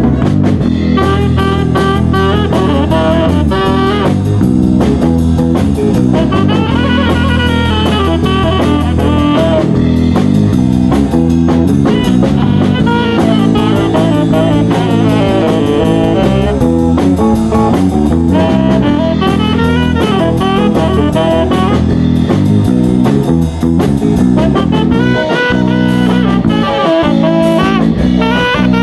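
Live rock-and-roll band: a tenor saxophone plays a solo over electric bass and drum kit.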